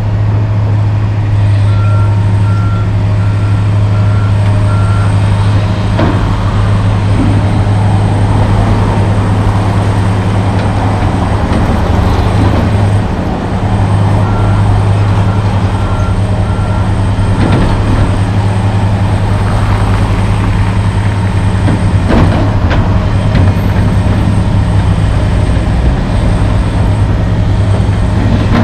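John Deere 470G track excavator's diesel engine running steadily while the bucket scrapes soil, with a few scattered knocks. A backup alarm beeps in two short runs, about two beeps a second.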